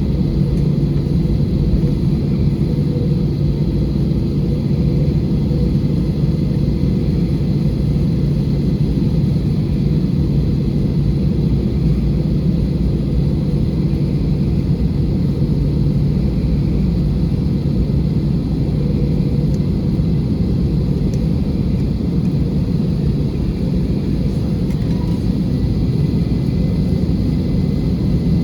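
Steady cabin rumble inside an Airbus A320 airliner, with the engines running at low power and a few steady low hums under the noise.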